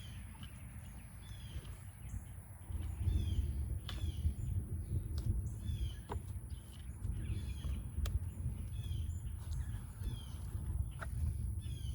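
Birds chirping repeatedly over a low rumbling noise that gets louder about three seconds in, with a few sharp clicks and a faint steady high-pitched tone.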